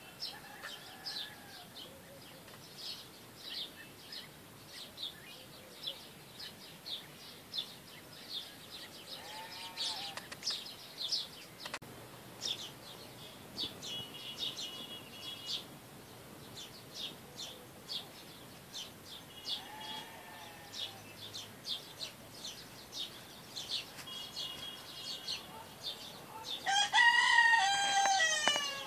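Small birds chirping over and over, with a few softer fowl calls. Near the end comes a loud rooster crow, about a second and a half long, falling in pitch.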